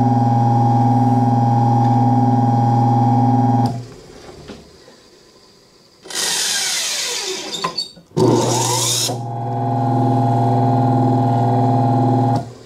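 Restored Wagner 1/2 HP single-phase electric motor running with a steady hum. It is switched off about four seconds in and goes quiet. About six seconds in it is started again, with a couple of seconds of louder rushing noise as it comes up to speed, then settles back into the same steady hum, which cuts off near the end.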